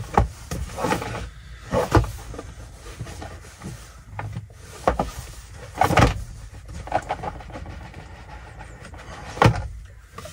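Cardboard packaging being handled: an inner box sliding and rubbing out of its cardboard sleeve, with a few sharp knocks as the boxes are tapped and set down on the table.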